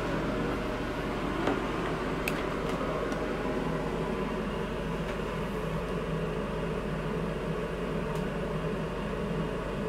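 Bathroom ceiling exhaust fan running, a steady whir with a low hum, moving about 62 CFM; a few faint clicks.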